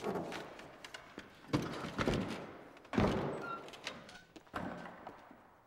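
Swinging doors thudding shut in a hallway: four heavy thuds about a second and a half apart, each echoing off hard walls.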